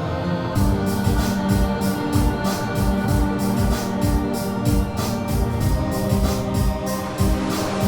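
Background music: sustained organ-like keyboard chords, with a steady beat coming in about half a second in.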